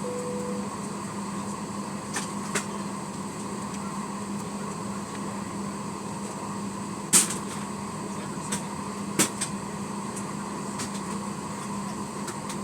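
Steady air-conditioning hum inside a Boeing 737-900ER's passenger cabin at the gate, with the last note of a two-tone falling cabin chime right at the start. Several sharp knocks and clicks break over the hum, the loudest about seven seconds in and another about nine seconds in, like overhead bins being shut and bags stowed.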